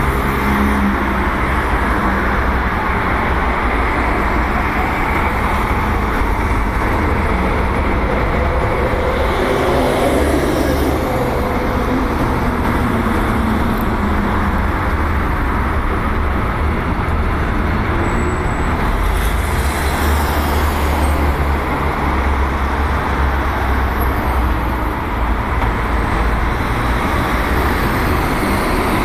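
Steady road traffic noise, with a vehicle passing about ten seconds in.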